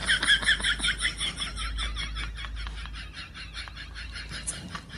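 A person giggling in quick, high-pitched bursts that fade away over the first couple of seconds, with light taps of a cat's paws on a wooden floor.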